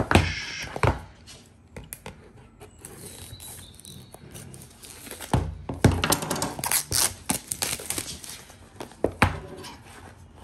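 Clear plastic shrink-wrap being slit with a kitchen knife and peeled off a cardboard phone box, crinkling and crackling in the middle, with sharp knocks of the box and knife being handled near the start and again near the end.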